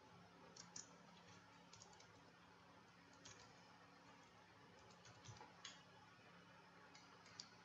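Faint computer keyboard typing: light keystroke clicks in small irregular groups over a low steady hum.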